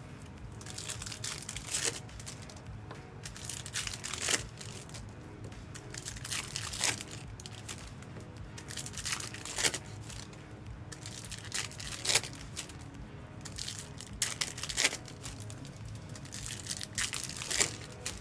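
Trading card pack wrappers crinkling and tearing in a series of short, sharp rustles every two to three seconds, over background music.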